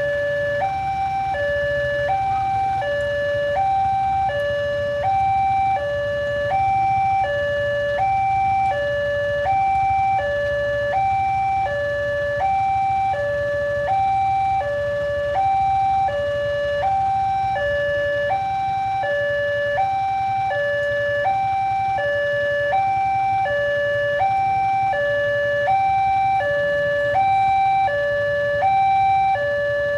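Railway level-crossing warning alarm sounding a steady two-tone high-low signal, switching pitch about every three-quarters of a second, the sign that a train is approaching the crossing. A low steady rumble runs beneath it.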